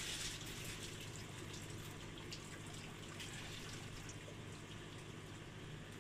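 Faint water dripping and trickling off the wet drum screen of a pond filter as it is lifted out, with scattered small ticks over a steady low hum.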